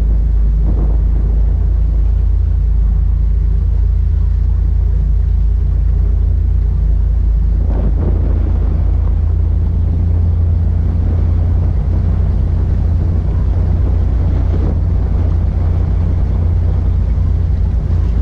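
Motorboat engine running steadily under way, a low drone heard from aboard the boat, with wind buffeting the microphone.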